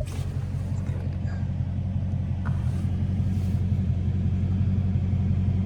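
Dodge Hellcat's supercharged V8 idling with a steady low rumble.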